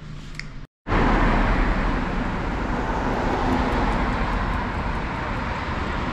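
Steady road traffic noise heard while travelling along a busy city street: an even rush of cars and tyres with a heavy low rumble. It starts abruptly after a brief silence under a second in.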